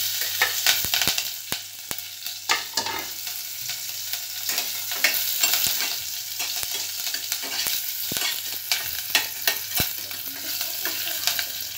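Green chillies and curry leaves sizzling in hot oil in a steel pot during a tadka (tempering), with frequent sharp crackles. A spatula stirs and scrapes against the steel.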